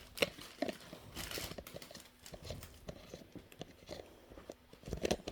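Scattered light clicks and knocks of a plastic water bottle and drip nozzle being handled and fitted together, with a small cluster of knocks near the end.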